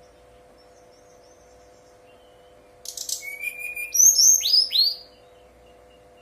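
Brown-chested jungle flycatcher (sikatan rimba dada coklat) singing one short phrase about three seconds in. It opens with a quick scratchy twitter and a brief held whistle, then ends in three loud downward-slurred whistles, over a faint steady hum.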